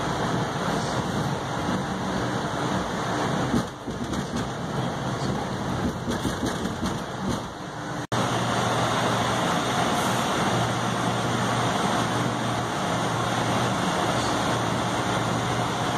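Interior running noise of an MBTA Red Line 1900-series subway car moving through a tunnel: a steady rumble and rush of wheels on rail with a low motor hum. The sound cuts out completely for an instant about eight seconds in, then carries on.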